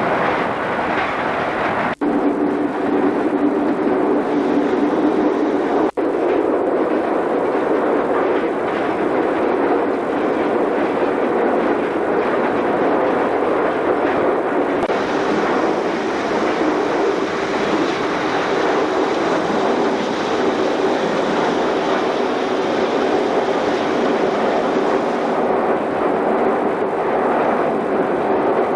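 Steam locomotive R 707, a Victorian Railways R class 4-6-4, running at speed, heard from inside the cab as a steady, loud mechanical roar. The sound drops out briefly twice, near the start. A higher hiss joins about halfway through and stops near the end.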